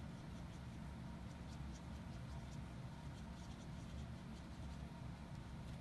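Faint scratching and light tapping of an orange alcohol marker's tip as it colours over clear epoxy dots on their plastic sheet.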